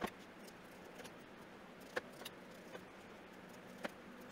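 Chef's knife slicing the rind off a cantaloupe on a wooden cutting board: faint, scattered clicks and scrapes of the blade through the rind, the sharpest about two seconds in and near the end.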